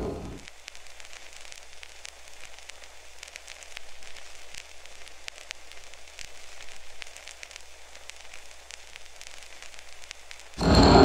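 Faint crackling hiss with many small, irregular clicks, like rain or static. The music cuts off just after the start and comes back abruptly near the end.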